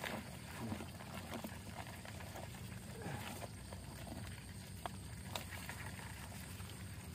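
Wet nylon mesh fish trap being gathered and handled by hand: faint scattered rustling with a few light clicks over a steady low background.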